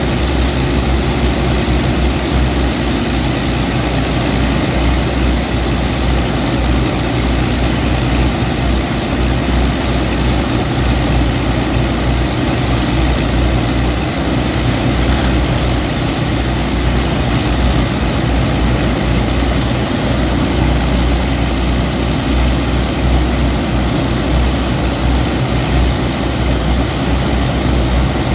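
Avro Lancaster bomber's four Rolls-Royce Merlin V12 engines running together on the ground, propellers turning, a steady, unchanging deep sound.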